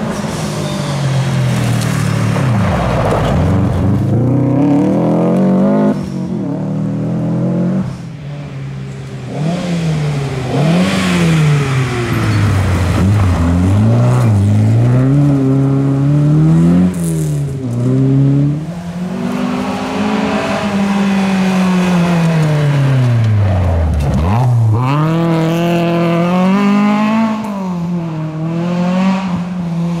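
Rally cars at speed on a gravel forest stage, one after another, their engines revving hard up and down through the gears. Each pitch climb is cut short by a gear change or a lift off the throttle, and the cars drop sharply in pitch as they go past.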